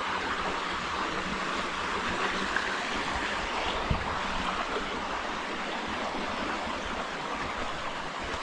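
Steady rush of a flowing stream, with one sharp knock about four seconds in.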